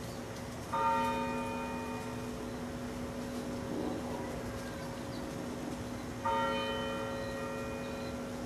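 A church bell tolling slowly: two strokes about five and a half seconds apart, its low hum ringing on between them. The bell is tolled in memory of the September 11 victims.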